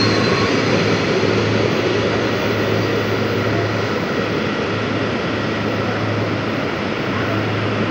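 ED4M electric train pulling out of the platform: the rush and rumble of its last cars passing close, easing over the first few seconds into a steady rumble with a low hum underneath as it draws away.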